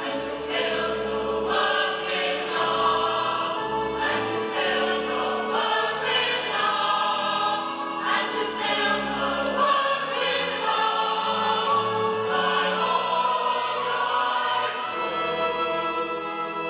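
Music: a choir singing with instrumental accompaniment.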